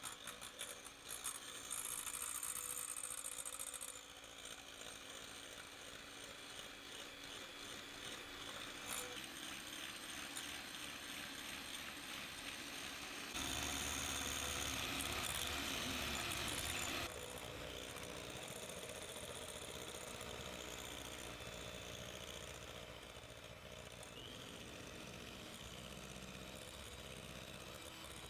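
Electric hand mixer running, its wire beaters whisking egg yolks and hot coffee sugar syrup into a coffee buttercream base in a glass bowl. The motor's steady run changes level a few times, loudest for a few seconds just past the middle.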